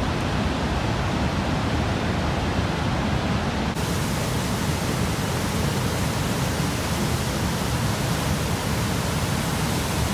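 River water rushing over a concrete weir, a steady wash of noise. About four seconds in it turns brighter and hissier, as from closer to the falling water.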